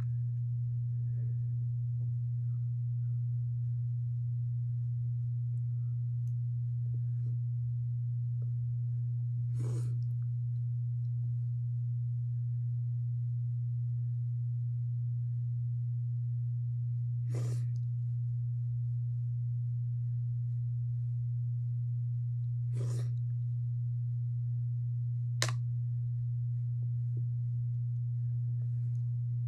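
A steady low hum, with a few sniffs from a runny nose: four short sniffs several seconds apart, the last one the sharpest.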